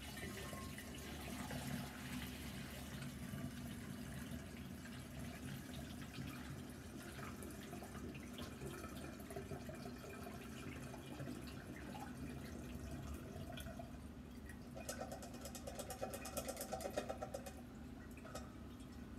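Cooled mugwort tea poured from a saucepan through a mesh strainer and funnel into a glass demijohn, trickling steadily. For a few seconds near the end it spatters louder as the pot is tipped further.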